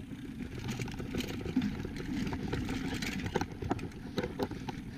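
Mountain bike being ridden over a dirt trail: steady low tyre and wind rumble with frequent small clicks and rattles from the bike.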